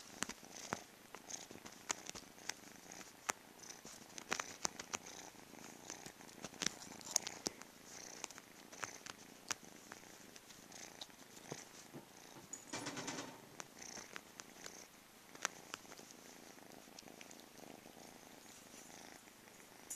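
Domestic cat purring close to the microphone. Sharp clicks and rustles are scattered through it as fur brushes the microphone, and there is a short higher-pitched sound about two-thirds of the way in.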